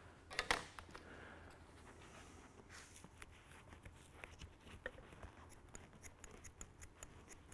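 Scissors snipping through old seat foam: faint clicks, a louder couple of snips about half a second in, then a quick run of small snips near the end.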